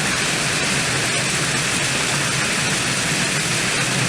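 Storm wind driving heavy rain and hail: a steady, dense hiss with no let-up.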